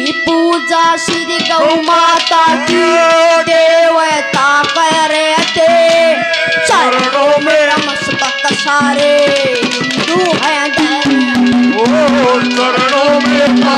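Haryanvi ragni music with no words: a melody line of held and sliding notes over steady hand-drum strokes.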